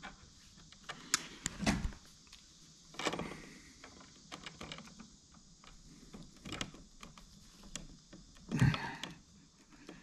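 Pliers clicking and scraping on bare copper ground wire as it is bent and folded back on itself, with scattered small ticks and a few louder knocks.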